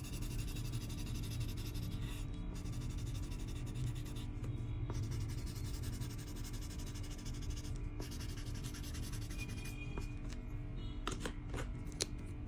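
A marker tip scratching back and forth on paper in quick colouring strokes, broken by a few short pauses, with a few sharp clicks near the end.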